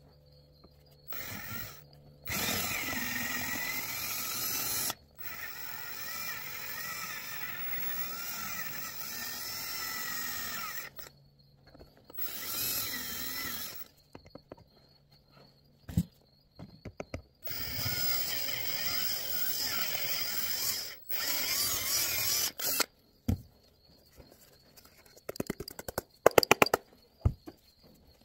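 Drill with an 11/64 bit drilling out the steering-wheel emblem rivets on an airbag cover, in several runs of a few seconds each with a wavering whine as the bit bites. Near the end comes a quick rattle of sharp clicks.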